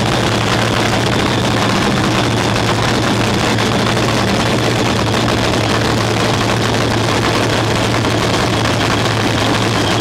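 Nostalgia nitro funny car's V8 idling, the steady, loud cackle of a nitromethane engine firing through open zoomie headers.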